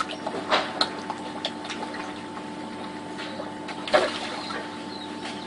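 Koi splashing at the pond surface as they crowd in to feed, with sharp splashes about half a second in and again about four seconds in, over a steady low hum.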